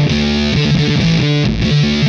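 Electric guitar played through a Fender Shields Blender fuzz pedal, with the pedal's octave-below voice blended in: a distorted riff of quickly changing single notes.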